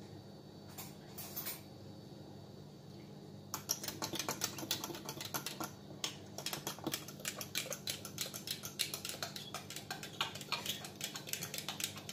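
Metal spoon stirring coffee in a ceramic mug, clinking rapidly against the sides. The stirring starts about three and a half seconds in, after a quiet stretch.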